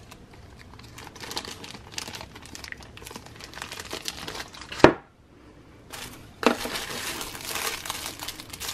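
Thin plastic crinkling as a small zip-top bag and plastic wrapping are handled. A sharp click about five seconds in, the loudest moment, is followed by a brief lull, then more crinkling of the wrapper.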